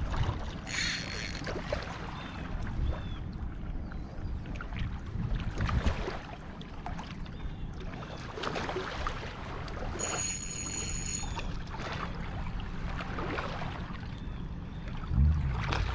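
Lake water lapping against a rocky shoreline, with wind rumbling on the microphone.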